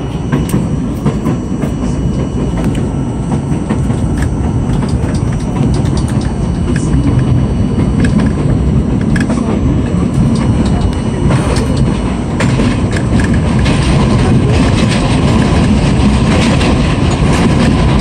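R42 subway car running along the track, heard from inside the car: a steady rumble with scattered wheel clicks, growing gradually louder.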